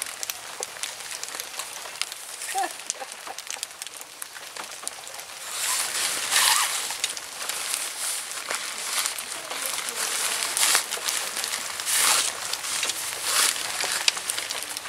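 Tent fabric rustling and swishing in several loud bursts, starting about six seconds in, as a tent pole is pushed through the tent's fabric and the fabric is pulled and gathered, over scattered small clicks.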